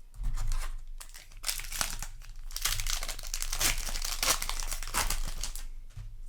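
Foil wrapper of a Magic: The Gathering booster pack crinkling as it is handled and torn open, a run of dense rustles from about a second and a half in until near the end.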